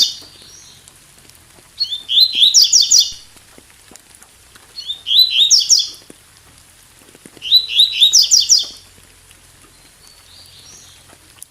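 Double-collared seedeater (coleirinho) singing its 'tui-tui' song in three quick phrases of rapid, high notes, with the end of another phrase at the very start and faint rain in the background.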